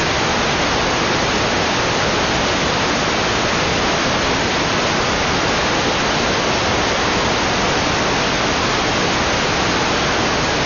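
Steady, loud static hiss at one unchanging level, with no rhythm or tones in it.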